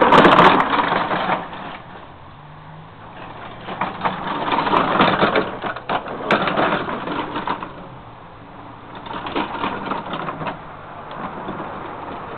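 Homemade roller coaster car's wheels rattling along the track, loudest at the very start and swelling again about four seconds in and once more near nine seconds.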